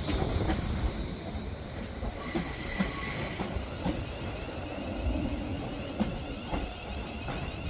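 Passenger train pulling into the platform: a low rumble with occasional wheel knocks, and a high brake or wheel squeal for about a second and a half partway through as it slows.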